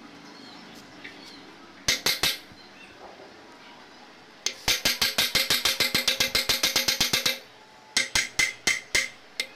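Runs of sharp metallic taps or clicks from a hand tool on diesel engine parts: a few about two seconds in, a long fast run of about eight a second in the middle, and a few more near the end.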